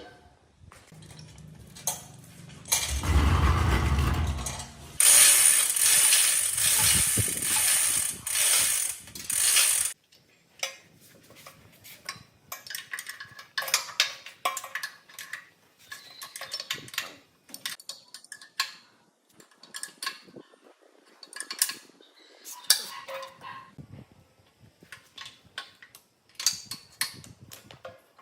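Hand work on a small motorcycle engine: a loud rasping noise for several seconds near the start, then irregular metallic clicks and knocks of tools and engine parts being handled.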